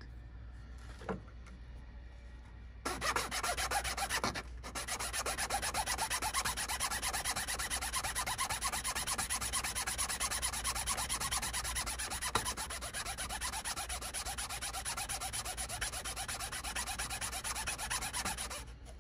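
A small piece of hardened glue rubbed back and forth on a flat metal hand file, filing away the excess dried glue. It is a fast, even rasping that starts about three seconds in, breaks off briefly a second later and runs on until just before the end.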